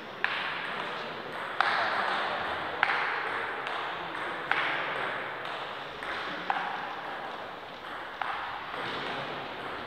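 Table tennis rally: the ball clicking sharply off bats and table at about one hit a second, each click ringing on in the echoing sports hall.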